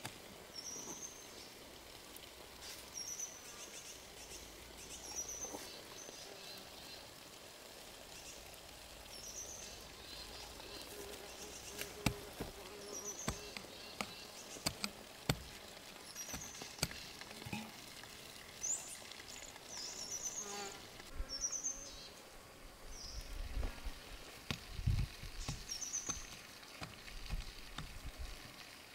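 Small hand hoe chopping and scraping soil around cabbage seedlings, with a few sharp clicks and some dull thuds near the end. A bird repeats a short high chirp every couple of seconds.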